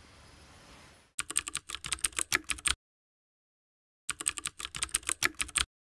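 Computer-keyboard typing sound effect: two runs of rapid key clicks, each about a second and a half long, with dead silence between and after them. A faint background hiss comes before the first run.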